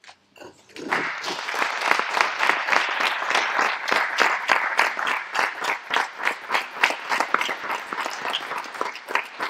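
A roomful of people applauding, a dense, steady clapping that starts about a second in.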